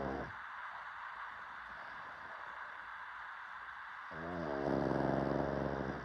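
A pug snoring in its sleep, in long drawn-out snores. One snore trails off right at the start, and the next begins about four seconds in and lasts about two seconds.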